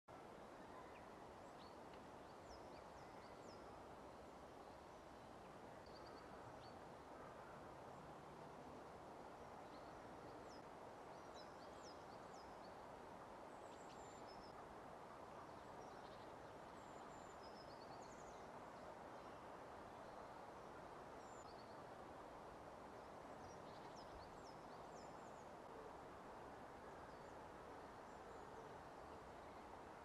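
Faint, steady outdoor background hiss with short, high chirps and calls from small songbirds scattered throughout.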